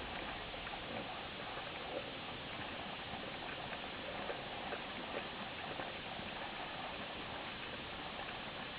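Underwater ambience picked up by a camera in its housing on a freediving spearfishing dive: a steady hiss with a dense, irregular crackle of small clicks and ticks.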